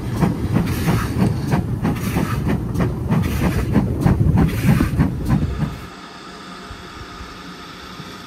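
A train hauled by a steam locomotive, heard at speed from a carriage window: a loud rumble of wheels on the rails, with many short clicks. About six seconds in it cuts off suddenly to a much quieter steady hiss.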